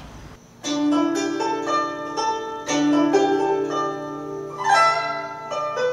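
Background music on a plucked string instrument, coming in about half a second in: single plucked notes that ring and fade, with a quick rising sweep across the strings a little after the middle.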